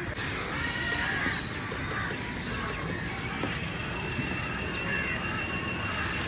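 A few short, arching bird calls over steady background noise, from birds that include house crows.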